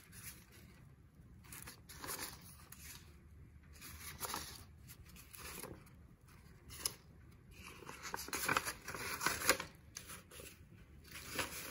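Sheets of paint-coated paper being handled: lifted, slid and laid down one over another, giving intermittent rustles that come more often in the second half.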